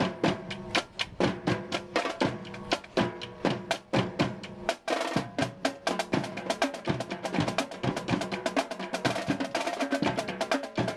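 Parade drumline playing: quick, steady snare and bass drum strokes several times a second, with some held pitched notes underneath.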